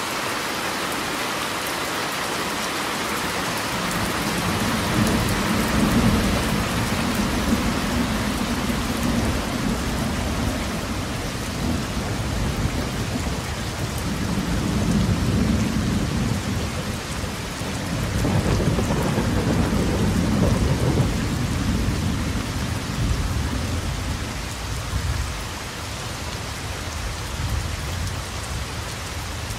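Steady rain falling, with thunder rumbling in long low swells, about four seconds in, again around a quarter of the way through, and again past the middle.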